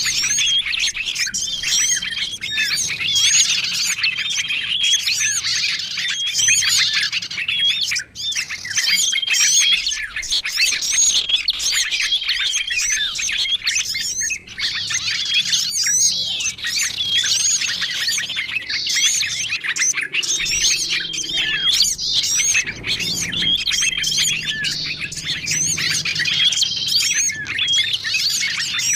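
Bird-lure recording of many small songbirds chirping and calling over one another in a dense, unbroken chorus. A short, steady high note recurs every couple of seconds among quick up-and-down chirps.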